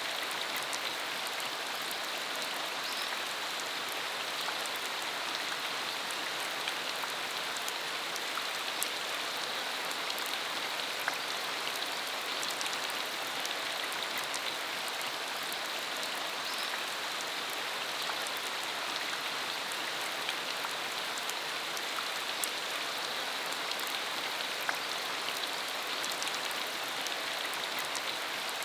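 Steady rain falling on a dirt road, a constant hiss with many small drop ticks scattered through it.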